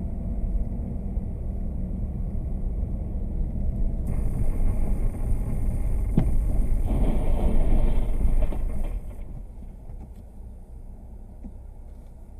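Road and engine noise inside a car's cabin, picked up by a dash cam while driving on a snowy highway: a steady low rumble that swells, with a brief louder hiss, then falls away after about nine seconds as the car brakes almost to a stop.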